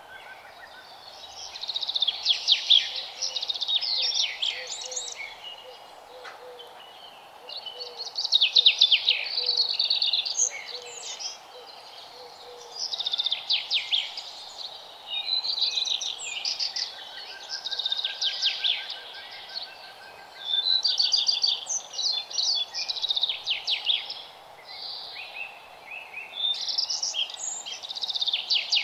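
Birds singing in repeated bursts of rapid, high chirps every few seconds, over steady background noise.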